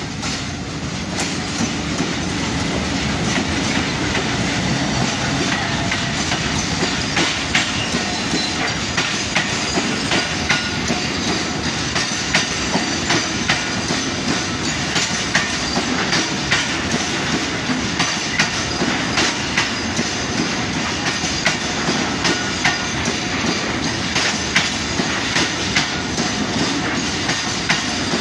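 Freight train of railway tank wagons rolling close past behind a diesel locomotive: a steady rumble with a regular clickety-clack of wheels over rail joints, the clicks sharper in the second half.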